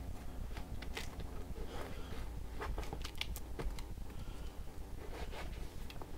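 Black sneakers creaking and rustling as feet are worked into them and a hand handles the collar and laces, with scattered small clicks and scuffs, over a steady low hum.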